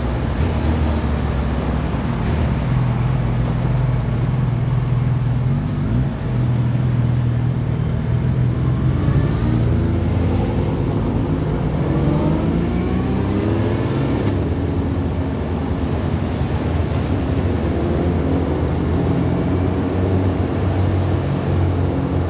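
Motorcycle engines running at highway speed under a steady wash of wind and road noise. Between about 8 and 14 seconds in, several engine notes rise in pitch as the bikes accelerate.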